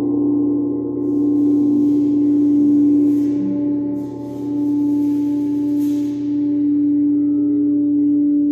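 Frosted quartz crystal singing bowl sung with a striker circled around its rim: one steady, sustained hum with softer overtones above it.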